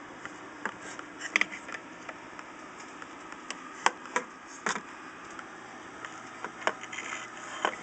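Handling noise: a few scattered light clicks and taps, about six spread irregularly, over a faint steady background hum.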